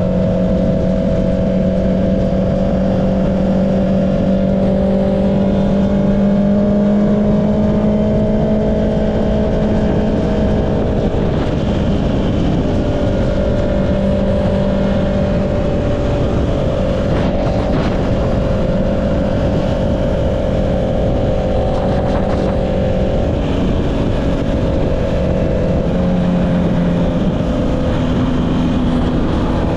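Honda CB650R inline-four engine through an Akrapovic exhaust, running at a fairly steady engine speed while riding, its pitch drifting gently up and down, with wind rushing over the microphone.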